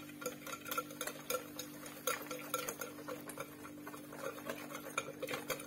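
Wire whisk stirring runny cake batter and flour in a glass bowl, knocking and scraping against the glass in a steady rhythm of about three strokes a second.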